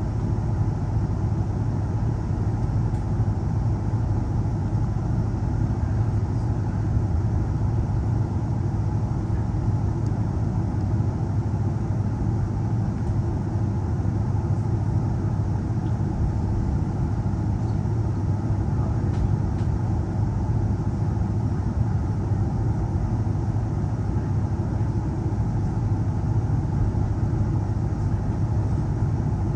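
Inside a moving Queensland Rail electric suburban train: a steady low rumble of the carriage running along the track.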